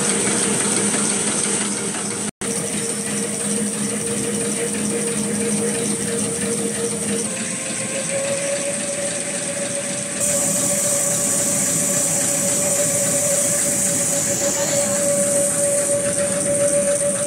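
Dental bib napkin paper processing machine running: a steady mechanical hum with a steady whine and a high hiss. The sound cuts out for an instant about two seconds in, the whine steps slightly higher around seven seconds in, and the hiss grows louder about ten seconds in.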